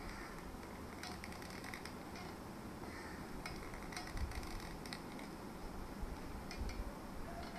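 Light scattered clicks and taps of a hot glue gun being worked against a small piece of cardboard, with a couple of dull low bumps about four and six and a half seconds in.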